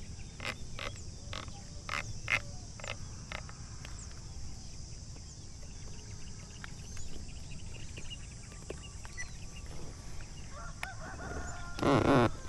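Scope elevation turret being dialled by hand, giving sharp clicks about twice a second for the first three seconds, as the scope is set for a 70 m shot. A loud, short burst comes near the end.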